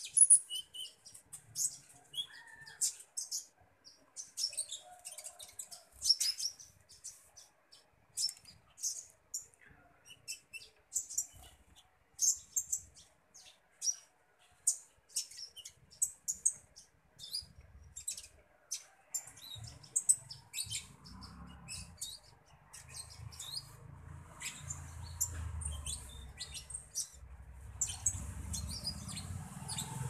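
Caged konin ijoan, a small songbird, giving a fast run of short, high chirps and tweets. A low rumble builds underneath in the last third.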